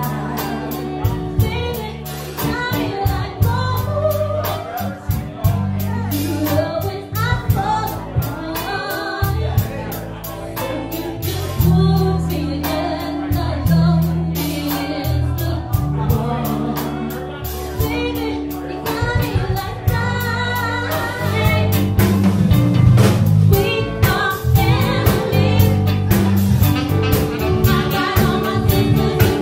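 A live band playing: a woman sings lead over electric bass and a drum kit. The music gets louder about two-thirds of the way through, and a second woman joins on backing vocals near the end.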